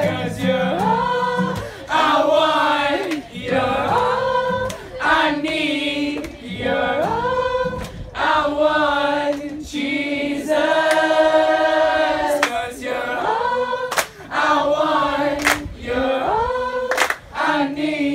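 A group of people singing a worship song together, holding long notes with short breaks between lines.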